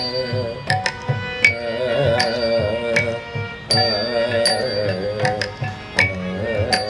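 Carnatic-style theatre music: a melody with wavering, ornamented pitch over a sustained drone, kept in time by a drum and metallic strokes that come about every three-quarters of a second.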